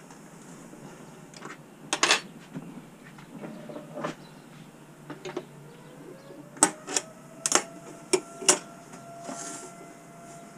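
Metal clinks and knocks of an open-end wrench and hex key on a router table's collet nut and steel table while the bit is changed: single sharp clicks about 2 and 4 seconds in, then a quick run of five over the next two seconds.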